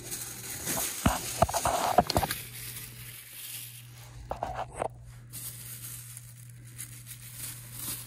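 Thin plastic bag crinkling and tearing as it is pulled by hand out of a furnace's squirrel-cage blower wheel, mostly in the first couple of seconds with a few more rustles around the middle. The bag caught in the wheel is the cause of the blower's scrubbing noise. A steady low hum runs underneath.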